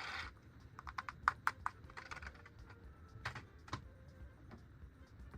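Sharp, light clicks and taps of hard plastic toy parts and packaging being handled, in irregular clusters about a second in and again past three seconds.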